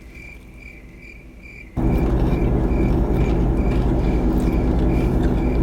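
A car's warning chime beeping steadily at a high pitch, about two beeps a second. Almost two seconds in, a loud steady rumble with a low hum starts abruptly, typical of the car's engine or blower fan coming on, and runs under the chime.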